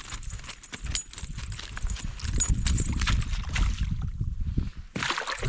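A freshly caught brook trout flopping in the canoe, making a quick, irregular run of knocks and thumps against the hull and gear.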